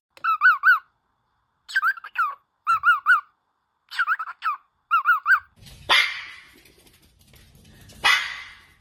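Parrot imitating a dog barking: short, high-pitched yaps in quick pairs and triples, five times. Two harsh, raspy bursts follow near the end.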